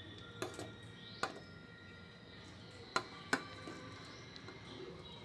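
Four light clinks of a stainless steel plate tapping the rim of a steel vessel as chopped onions and herbs are tipped off it.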